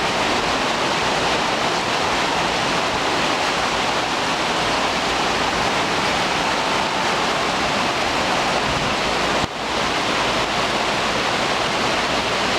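Steady hiss of rain and hail falling, with one brief break about nine and a half seconds in.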